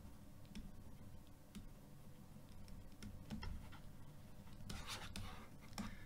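Faint scratching strokes and light ticks of a stylus writing on a tablet surface, with a slightly longer scratch about five seconds in.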